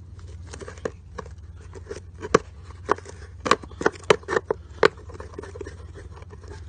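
Aluminium frying pan's riveted handle mount bent back and forth by hand: a dozen or so sharp clicks and cracks, loudest between about two and five seconds in, as the metal fatigues and fractures along two bolt-cutter cuts to break the handle off.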